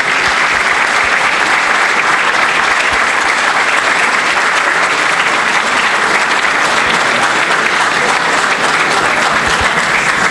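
Audience applauding, steady unbroken clapping.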